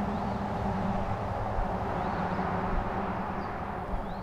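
Steady outdoor background noise with a low hum, and a few faint short bird chirps over it.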